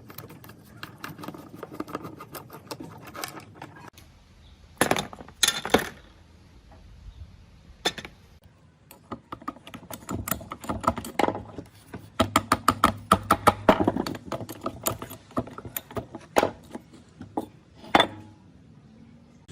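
Metal parts and tools clinking, tapping and knocking as they are handled, with a quick run of taps in the second half and two short harsh scraping bursts about five seconds in.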